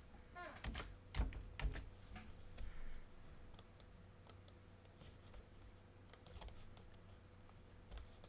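Faint scattered clicks and light taps, a few louder ones in the first couple of seconds.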